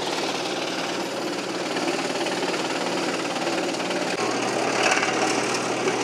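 Woodmaxx MX8600 PTO wood chipper, driven by a compact tractor, chewing up a pine limb: a steady grinding rattle over the tractor engine's hum.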